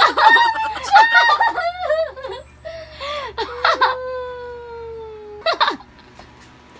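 Young women squealing and laughing in high-pitched, excited bursts, with one long drawn-out squeal about four seconds in.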